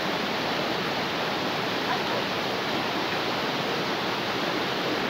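Rushing water of a shallow rocky river running over stones and small rapids: a steady, even hiss.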